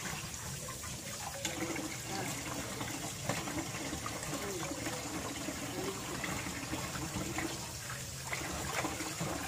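A kitchen tap running steadily into a stainless steel sink basin while hands rub and rinse fish in the water, with small splashes and knocks.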